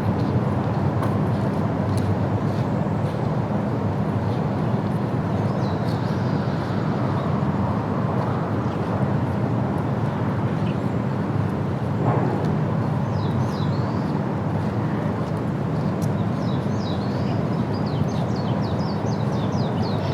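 Birds chirping over a steady low rumble, with a quick run of chirps near the end.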